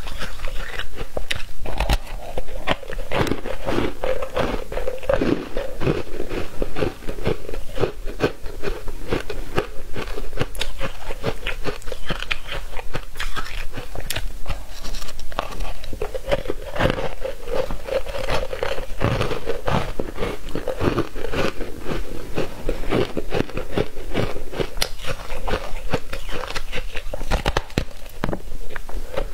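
Biting into and chewing frozen foam ice, close to a clip-on microphone: a dense run of crisp crunches and crackles.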